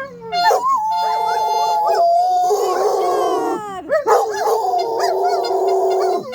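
Dogs howling together, a drawn-out chorus of long held notes broken by calls that swoop up and down in pitch, with two short breaks, one near the start and one about two-thirds of the way through.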